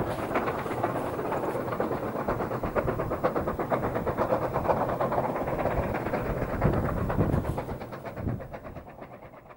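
Chinese QJ-class steam locomotives working a heavy freight, their exhaust chuffing in rapid, even beats. The chuffing fades away over the last second or two.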